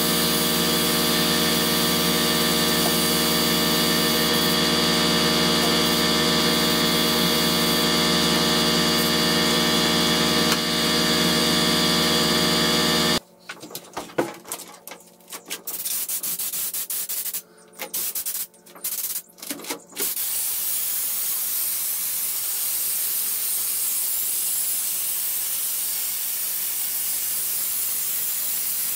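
Air compressor running steadily under the hiss of a Raptor bed-liner spray gun. About 13 seconds in, the compressor noise cuts off abruptly, leaving a few seconds of short, broken noises and then a steady spray hiss.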